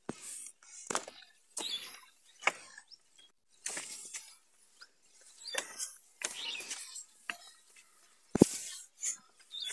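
Footsteps crossing a bamboo-pole footbridge and onto ground littered with dry leaves: a rhythm of crunching, creaking steps about one a second, with one heavy thump about eight seconds in.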